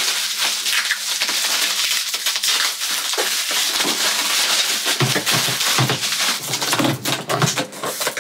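Plastic bubble wrap crinkling and crackling as it is handled and pulled off a wrapped case, a dense, continuous run of small crackles.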